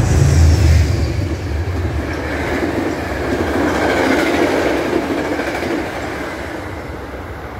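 Metro-North express train passing at speed close by. The locomotive's low rumble is the loudest part, in the first second. Then the coaches rush past on the rails, easing off gradually toward the end as the last car goes by.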